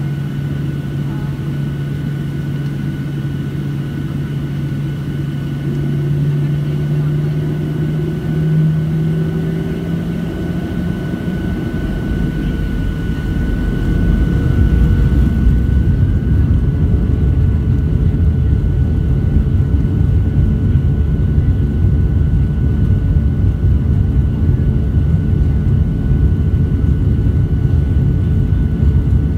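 Boeing 737-700's CFM56-7B jet engines heard inside the cabin from a seat over the wing: a steady hum while the jet moves onto the runway, then about halfway through the engines spool up and the sound grows louder into a dense rumble as takeoff thrust is set.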